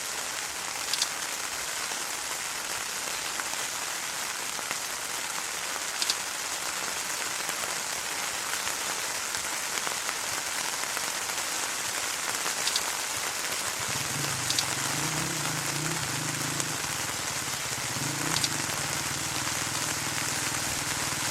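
Steady rain falling, with a few sharper ticks of drops landing close by. About two-thirds of the way in, a low hum joins the rain.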